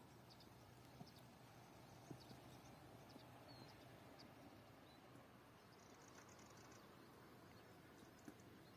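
Near silence: faint outdoor ambience with a few soft ticks and some faint, short high chirps.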